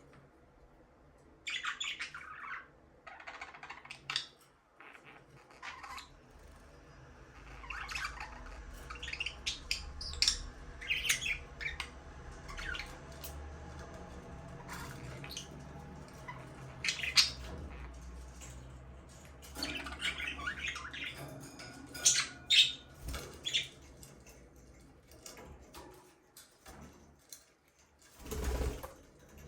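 Budgies chirping and squawking in short, irregular bursts of high calls, over a faint low rumble through the middle stretch. A brief rustling burst comes near the end.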